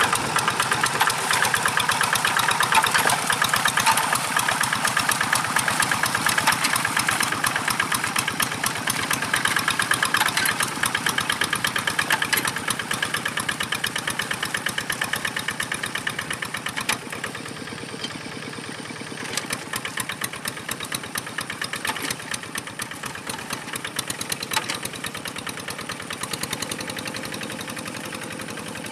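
Single-cylinder diesel engine of a two-wheel hand tractor chugging steadily under load while plowing a muddy paddy, with a fast, even firing beat. It grows gradually fainter over the second half as the tractor moves away.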